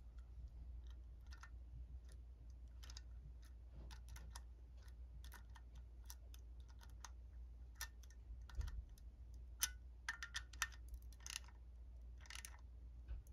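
Screwdriver driving small screws into the rear housing of a Ford alternator: faint, irregular light metal clicks and ticks, with a few louder clicks about two-thirds of the way through.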